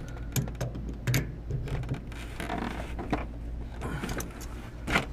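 Metal wrench working a tight plastic drain plug on a waste-tank fitting: scattered sharp clicks and knocks with some scraping as the tool grips, slips and is reset on a plug that will not turn. A steady low hum runs underneath.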